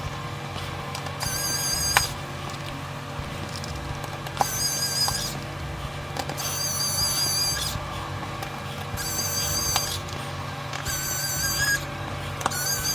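Small electric screwdriver whining in short bursts of about a second, six times, with a wavering high pitch, as screws are driven out of the tablet's frame; light clicks of tools on the case fall between the bursts.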